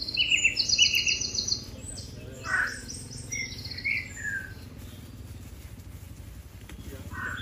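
Small birds chirping in quick trilled bursts. The calls are loudest in the first second and a half, and a few more come up to about four seconds in.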